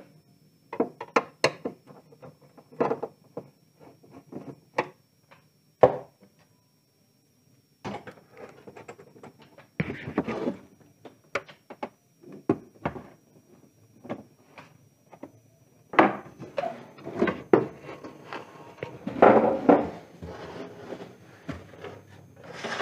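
Hard plastic clicks, knocks and scraping as the Polytron PLD 24D123 LCD TV's screws are undone, the set is turned face down on a wooden bench and its plastic back housing is pried loose and lifted off. The handling is busiest and loudest near the end.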